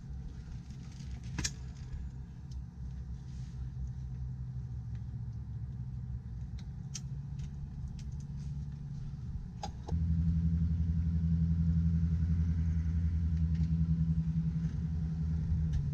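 Steady low machine hum, stepping up louder about ten seconds in, with a few sharp clicks as cockpit switches are set during a UH-60M Blackhawk's pre-start checks.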